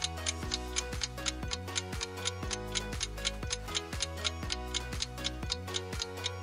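Quiz countdown timer sound effect: a clock ticking evenly, about four ticks a second, over background music with sustained bass notes.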